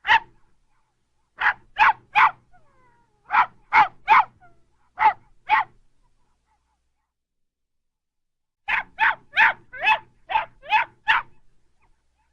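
Small dog barking in short, high-pitched yaps: a single bark, then runs of two or three, then after a pause of about three seconds a quick run of about eight barks.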